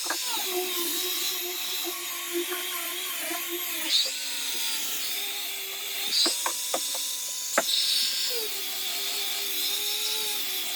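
A small electric power tool motor running steadily, its pitch shifting a few times, with several sharp knocks and clicks, mostly between about six and eight seconds in.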